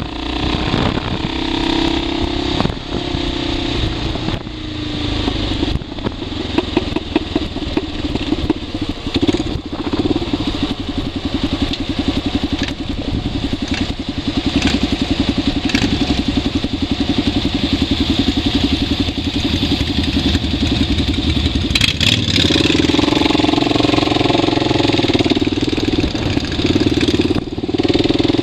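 Motorcycle engine running under way, with wind and road noise over the bike-mounted camera. Through the middle the engine runs low with an even putter as it rolls along slowly, then it grows louder about three-quarters through as it pulls away.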